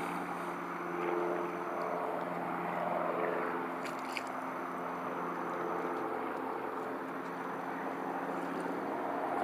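Steady drone of a distant engine, with a few faint clicks about four seconds in.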